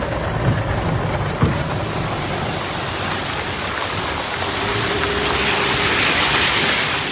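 Heavy storm rain beating down, a dense steady hiss that swells a little late on.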